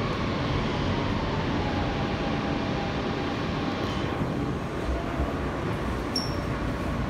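Kawasaki R160B subway car with Siemens propulsion, heard from inside as the train slows and comes to a stop, with a falling whine from the traction motors. The running noise eases about four seconds in as the train halts, and a short high beep sounds about six seconds in.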